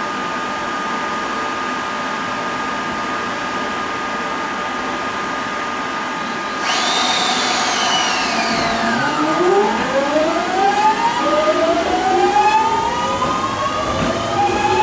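Steady hum with two steady tones, then about seven seconds in a 209-series train's early-type screw air compressor (MH3096-1600S) starts up: a sudden jump in loudness, a falling whine, then several rising whines as its motor spins up, a vacuum-cleaner-like sound.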